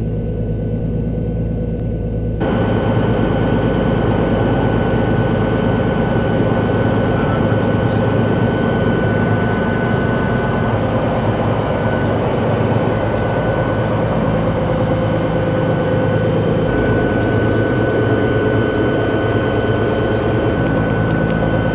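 Cirrus SR22T's turbocharged six-cylinder engine idling on the ground, heard from inside the cabin: a steady low engine hum with a constant high tone over it. About two seconds in, the sound steps up louder and hissier at an edit.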